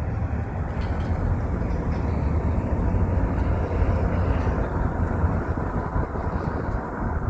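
Steady road and engine noise of a car driving, heard from inside the cabin, a low rumble without breaks.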